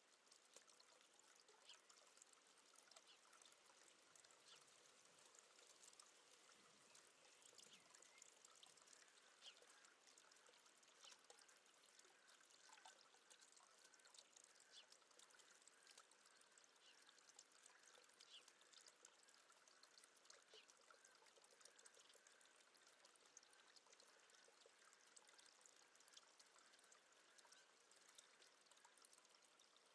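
Near silence: a faint, even hiss with scattered tiny ticks.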